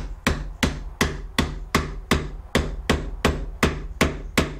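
Hammer tapping a tight pine dovetail joint together, the blows landing on the wood about three times a second in a steady run.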